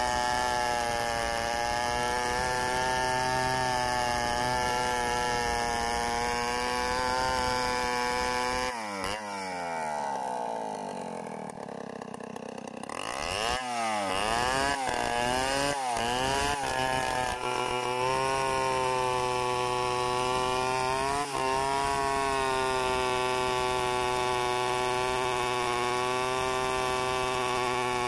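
Stihl 070 two-stroke chainsaw ripping a log lengthwise into boards at full throttle. About a third of the way in the revs fall away to a low idle for a few seconds. It is then blipped up several times and settles back to steady full-throttle cutting.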